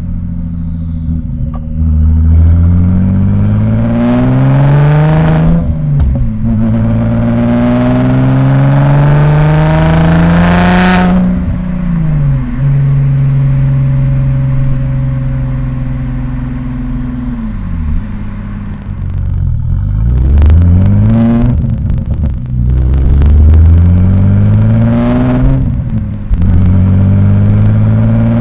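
Audi S4 B5's twin-turbo 2.7-litre V6 accelerating under part throttle, its pitch climbing and dropping at each gearchange, with a rising turbo whistle on each pull. About eleven seconds in there is a sharp burst of turbo flutter as the throttle lifts. It then cruises steadily before pulling through the gears again.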